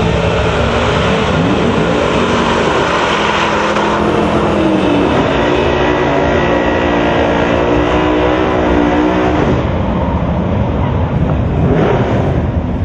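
Two drag-racing cars launching off the start line and accelerating hard down the quarter-mile strip. The engine note climbs in pitch, drops back at each gear change, and climbs again, then stops about nine or ten seconds in.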